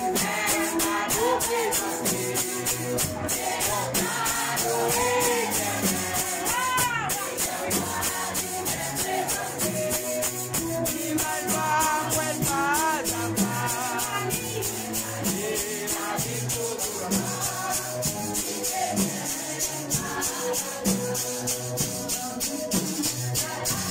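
Live worship music: voices singing through microphones over a metal cylinder shaker rattling a fast, even beat, with drums underneath.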